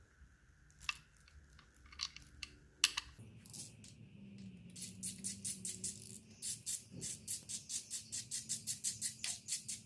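Hand ratchet clicking in fast, even strokes, about four or five clicks a second, as bolts are run in on the timing guides. It starts about three seconds in, after a few scattered clicks of metal parts being handled.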